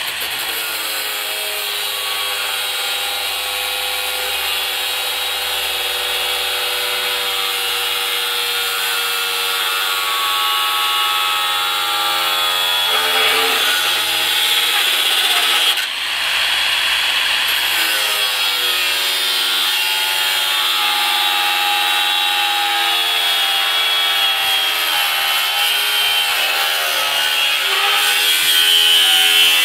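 Makita XAG12 36-volt (2×18 V) brushless cordless 7-inch angle grinder with an abrasive cut-off wheel cutting through a steel Y-post: a steady motor whine over the harsh grinding of the wheel in the steel. The pitch sags and recovers as the load changes, with a brief dip about sixteen seconds in and harder, louder cutting near the end.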